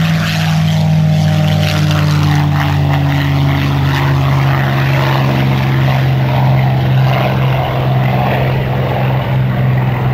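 Piston-engined propeller aircraft taxiing close by at low power: a steady engine drone, dropping slightly in pitch in the first couple of seconds as one passes.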